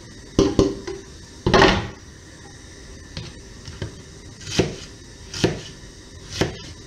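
A kitchen knife and wooden cutting board: in the first couple of seconds onion is scraped off the board into a frying pan, with a few knocks and one louder scrape. Then a kitchen knife chops onion on the wooden board in single, slow chops about once a second.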